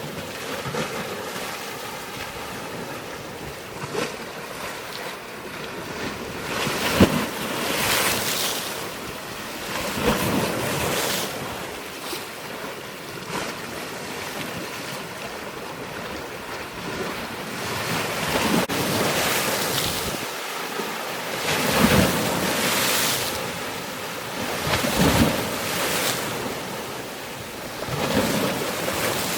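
Rushing water with wind blowing on the microphone: a steady wash broken by louder surges every two to three seconds, like waves.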